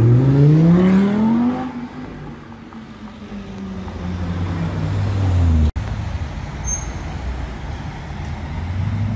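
Audi R8 Spyder's V10 engine accelerating hard, its pitch climbing steadily for about a second and a half. Then quieter engines run steadily, and after a sudden break about halfway through, another car engine drones low.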